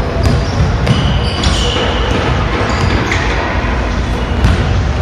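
Basketball bouncing on a hardwood gym floor and short high sneaker squeaks as players run, over the steady din of the gym.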